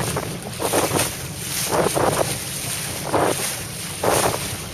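Wind buffeting the microphone of a mast-mounted camera over the rush of water along a sailing dinghy under way. The noise swells in surges about once a second.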